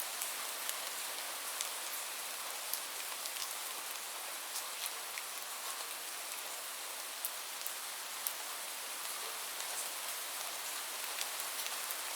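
Light rain falling steadily: an even hiss with scattered sharp ticks of individual drops striking a surface.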